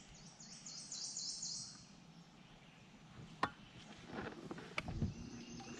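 A bird's rapid, high-pitched trill of quickly repeated notes for about two seconds, followed by two sharp clicks about three and a half and five seconds in.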